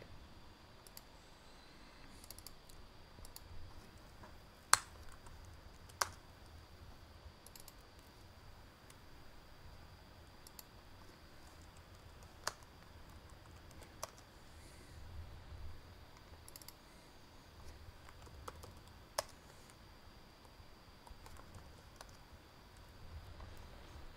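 Faint, scattered clicks of a computer mouse and keyboard keys as values are picked and entered, a few sharper clicks standing out among softer ones.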